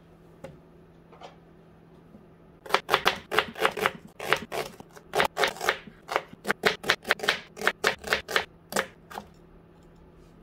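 Kitchen knife slicing an onion on a plastic cutting board: a rapid run of sharp cuts, about three or four a second, starting about three seconds in and stopping shortly before the end.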